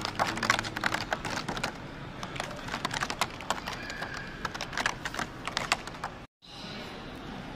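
Rapid, irregular clicking and tapping, thickest in the first three seconds, over the steady noise of a busy hall. The sound cuts out completely for a moment about six seconds in.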